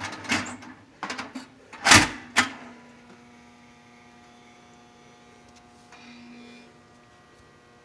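Metal clicks and clunks from handling a 1950s General Electric Toast-R-Oven toaster, the loudest about two seconds in. They are followed by a faint, steady electrical hum.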